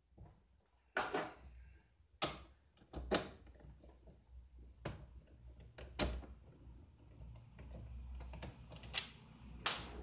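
Irregular sharp plastic clicks and knocks, about seven of them, from hands working on the plastic trim and wiring under an Opel Corsa C's dashboard.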